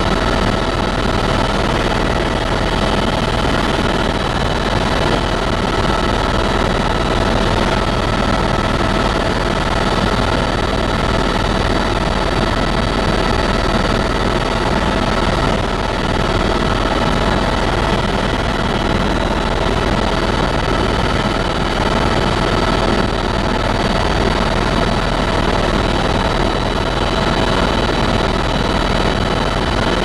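Cabin noise inside a tour helicopter in flight: a loud, steady drone of engine and rotor with an even whine over it.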